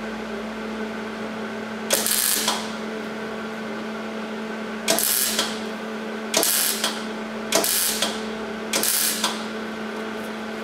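MIG welder tack-welding a steel patch panel into a rusted-out truck fender: five short bursts of crackling arc, each about half a second long, over a steady hum.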